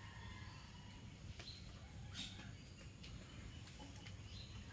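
Faint outdoor ambience: a few short, high bird chirps, about three, scattered over a low steady rumble.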